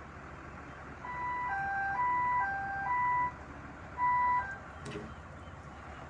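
Two-tone warning alarm from heavy equipment, alternating high and low pitch about twice a second, pausing briefly and sounding again, over the steady rumble of diesel engines. A single knock follows near the end.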